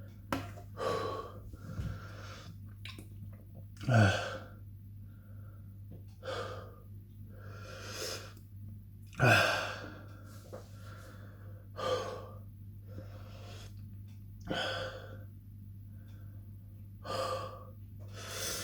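A man breathing hard and audibly through the mouth, a breath every second or two, to cool the burn of extremely hot chilli. Two sudden, louder catches of breath come about four and nine seconds in.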